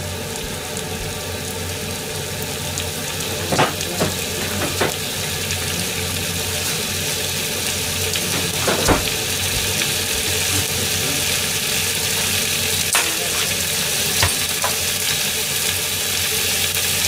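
Pork belly strips sizzling in a frying pan as their fat renders out, growing a little louder as the pan heats, with a few sharp pops.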